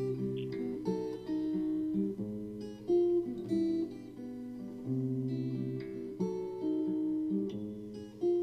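Background music: an acoustic guitar playing chords, a new chord or note about every second.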